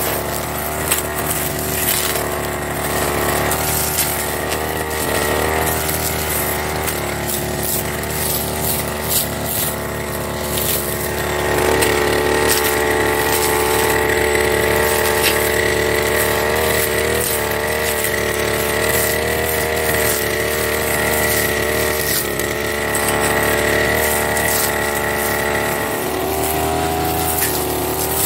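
Firman backpack brush cutter's engine running hard as it cuts through dry grass and small woody shoots, with scattered sharp ticks as stems are struck. Its pitch and level rise about a dozen seconds in and ease back a couple of seconds before the end.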